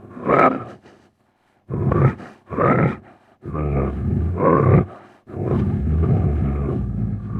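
Made-up monster sound effect for a rhinoceros-like creature: a run of deep animal roars and grunts, about five calls, the last two each held for over a second.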